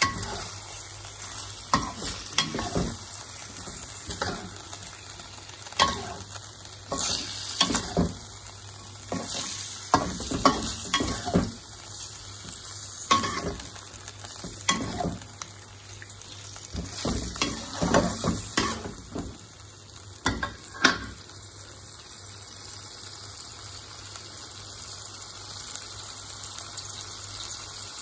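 Beef liver frying in oil in a wok, sizzling steadily, while a metal spatula scrapes and knocks against the wok as it is stirred. The stirring stops about three-quarters of the way through and only the sizzle goes on.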